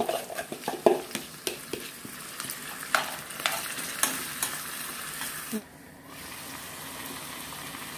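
A spoon stirring grated coconut into tuna thoran in a sizzling frying pan, with sharp clicks and scrapes against the pan. Near the end the pan is covered with a glass lid and a steady sizzle goes on underneath.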